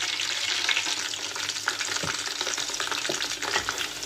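Onion frying in hot oil in a pan: a steady sizzle full of small crackles and pops.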